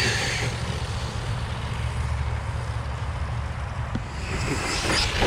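Electric RC cars' motors whining as they speed away, the whine fading within the first half second. Then mostly low wind rumble on the microphone, with a rising motor whine returning near the end.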